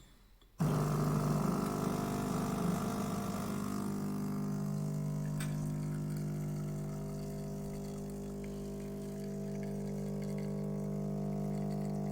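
Gemilai/ITOP CRM3605 espresso machine's Ulka vibratory pump switching on about half a second in and buzzing steadily while it pulls a single shot, pushing it at about 12 bar. The note settles and steadies after about four seconds.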